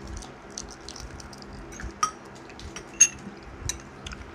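Scattered small clicks and clinks of eating at a table: metal spoons tapping bowls and duck-egg shell being picked off, with a sharp clink about three seconds in.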